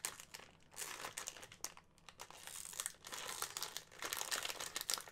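Sealed foil blind bag crinkling as fingers squeeze and knead it to feel the small figure inside: an irregular run of crackles that eases off briefly about two seconds in.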